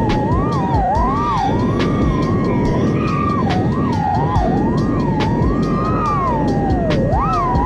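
Foxeer Datura 2207.5 1960kv brushless motors on an FPV racing quad whining as it flies, the pitch swooping up and down continuously with the throttle, over a dense rushing noise with scattered sharp clicks.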